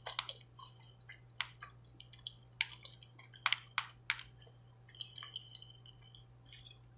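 Eating sounds: a scatter of short, sharp clicks and taps as a plastic fork picks food from a takeout tray, with a faint steady low hum underneath.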